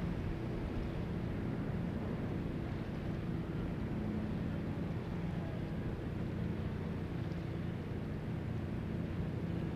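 Car ferry's engines droning steadily as it cruises in, a low even hum over a steady rushing noise.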